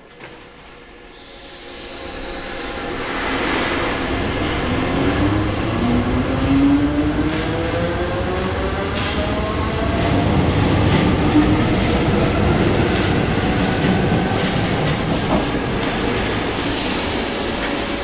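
Paris Métro MF67 train pulling out and picking up speed, its motors whining in a steadily rising pitch over wheel and rail noise. Later it keeps running with wheel squeal and clatter on the track.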